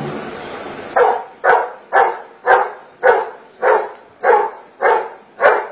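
Golden retriever barking nine times in an even run, about two barks a second, starting about a second in: the dog barking out a count of ten on command.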